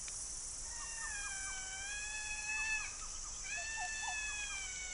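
Two long, slightly wavering whistled animal calls, each about two seconds, with short chirps between them and near the end. Under them is a steady high hiss of night insects.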